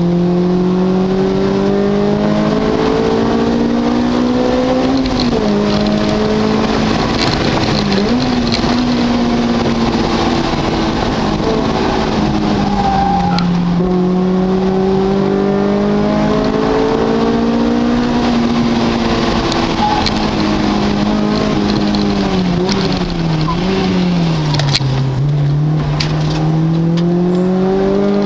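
Car engine driven hard round a race circuit, climbing in pitch through the gears with sudden drops at each gear change. It falls away in longer slides with short blips where the car slows for corners, then climbs again.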